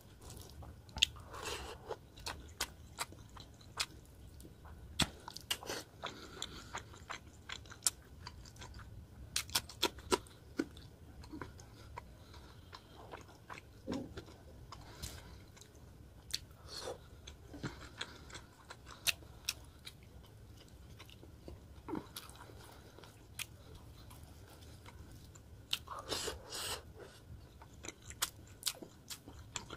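A person eating rice and fried rohu fish curry by hand, close to the microphone: steady chewing and wet mouth sounds with many sharp, irregular crunches.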